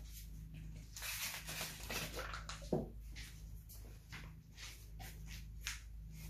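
Soft, scattered handling sounds, small knocks and rustles of someone moving things about, over a low steady hum.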